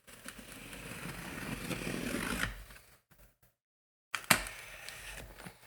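A small knife scraping and slicing along a cardboard box to cut it open, a long cut that grows louder for about two and a half seconds and stops. A sharp knock about four seconds in, followed by softer scraping and handling of the box.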